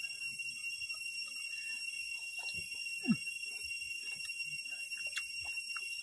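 Chewing and crunching on grilled shrimp eaten with the shell on, small irregular clicks, over a steady high-pitched insect chorus. About three seconds in, a brief low falling hum.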